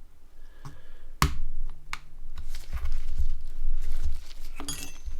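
Sharp plastic clicks and handling knocks as small parts of a Nokia N91 phone are pressed and snapped into place, with a brief low hum about a second in.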